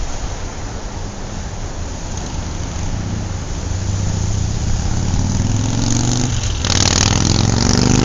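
City street traffic: a steady low rumble of engines and tyres, then a vehicle's engine rising in pitch as it accelerates and grows louder, passing close near the end with a rush of tyre and road noise.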